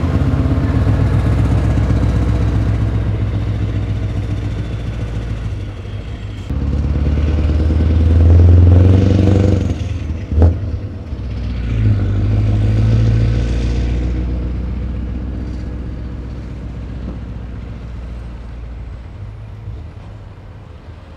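Scania V8 diesel truck engine pulling away under load, climbing to its loudest about eight seconds in and surging again a few seconds later, then fading as the truck drives off. A single sharp crack sounds about ten seconds in.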